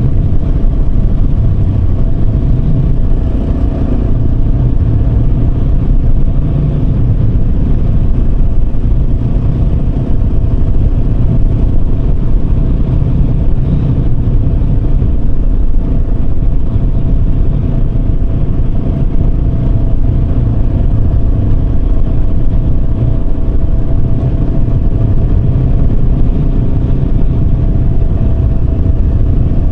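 Yamaha Serow 250's air-cooled single-cylinder engine running steadily while the bike is ridden, with a deep, even rumble underneath.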